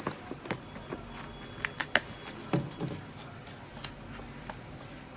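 Hands handling thin plastic toy parts of a light-up windmill: irregular clicks, taps and plastic crinkling, busiest and loudest around two seconds in.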